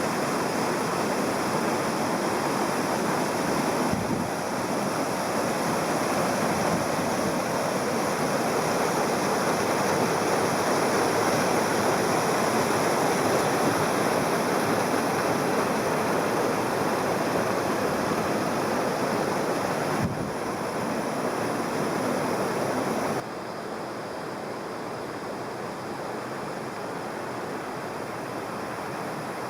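Creek waterfall: a steady rush of falling water. It drops abruptly in level a few times and is quieter for the last few seconds.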